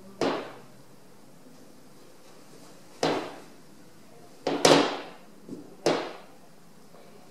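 A heavy hanging steel anvil set down on wooden floorboards, giving several sharp knocks a few seconds apart, one of them doubled. Each knock fades quickly in the room.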